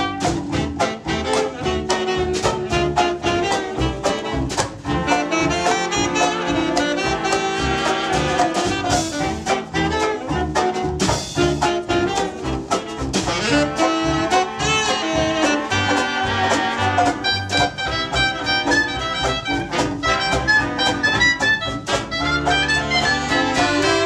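A big dance band playing an instrumental chorus of an early-1930s jazz tune, with trumpets, trombone and saxophones over a rhythm section of string bass and plucked strings keeping a steady beat.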